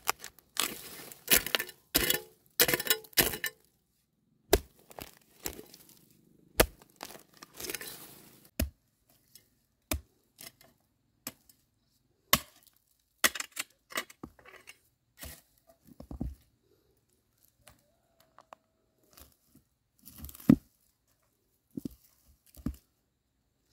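A hand hoe chopping into dry earth and dead grass stubble, irregular blade strikes with crunching and tearing of soil and roots, coming in quick clusters early and more spaced out later.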